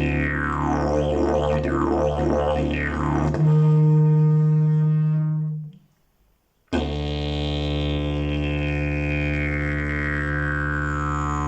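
Fiberglass slide didgeridoo playing a low drone, shaped by sweeping vowel-like changes in tone. About three and a half seconds in it jumps to a louder, higher note that dies away. After a pause of about a second the drone starts again with a slow falling sweep.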